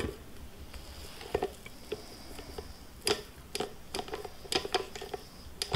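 Silicone spatula scraping thick peanut butter cookie dough off a stand mixer's flat beater and stainless steel bowl, with soft squishes and scattered light taps and knocks against the bowl. A sharp click right at the start.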